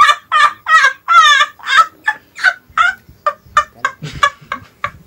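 A person laughing hard in rapid, high-pitched bursts, with one longer squeal about a second in, the laughter slowing and fading toward the end.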